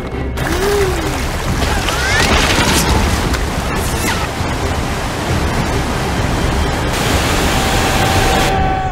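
Whitewater rushing and splashing as it pours over a waterfall: a steady, loud rush. Near the end a held tone comes in over it.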